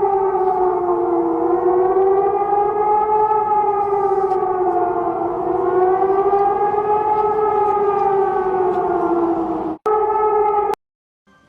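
Emergency alert (EAS) alarm siren: two pitches sounding together, wavering slowly up and down about every four seconds. Near the end it drops out for a moment, comes back for about a second, then cuts off.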